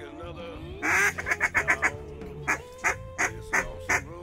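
Duck calls blown in quick, rhythmic notes with short rapid runs, calling teal in to the decoys.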